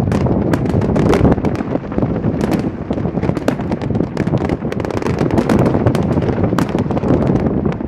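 Fireworks going off: a dense, irregular run of sharp bangs and crackles, many a second, over a continuous low rumble.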